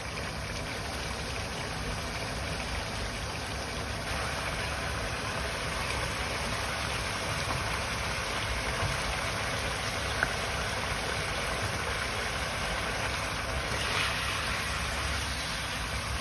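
Adobo sauce bubbling as it simmers in a non-stick pan, with a steady low rumble. A ladle stirs through it, giving one sharp tap about ten seconds in.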